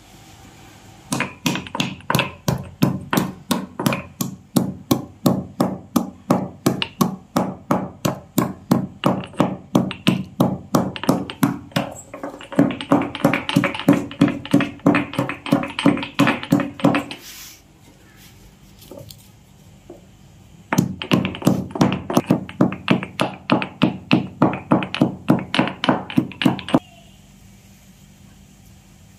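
Stone pestle pounding cardamom pods and dry ginger in a small stone mortar, steady knocks about three a second. The pounding stops for a few seconds partway through, then starts again and stops near the end.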